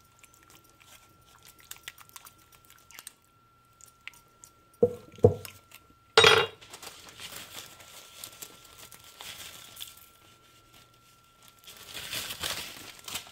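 Handling noises around a cast iron pan of gnocchi: two soft knocks about five seconds in and a sharper knock a second later, then a long dry rustle and crinkle as nutritional yeast is sprinkled over the top.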